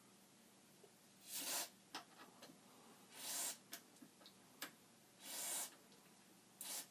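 Aerosol can of DeoxIT D5 contact cleaner sprayed in three short hisses about two seconds apart, with a briefer fourth near the end and a few light clicks between, into a control switch to clean its contacts.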